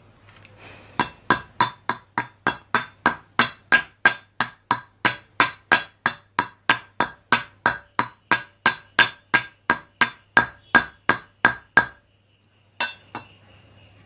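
Hammer tapping steadily on metal, a little under three ringing strikes a second, which stop about twelve seconds in and are followed by two more taps shortly after.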